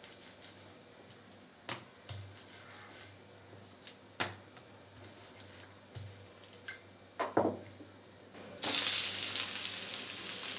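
A few short knocks of a rolling pin on a silicone mat as the coiled paratha dough is rolled out. Near the end a loud sizzle starts suddenly as the paratha lands on a hot, oiled cast iron tawa.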